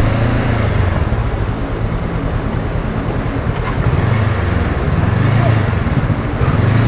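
Motorcycle engine running low and steady, its hum swelling and easing a few times, over a constant rushing noise.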